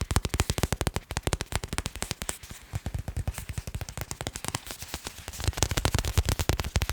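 Fast tapping on assorted hard objects: a dense, rapid run of short, sharp taps, many a second, some heavier and deeper than others.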